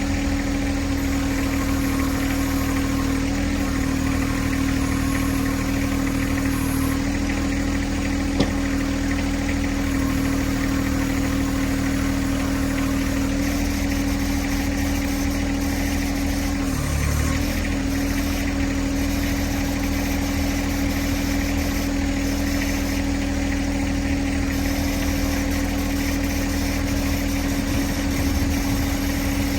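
John Deere 1026R compact tractor's three-cylinder diesel engine running steadily, dipping briefly in pitch once about seventeen seconds in, with a single sharp click about eight seconds in.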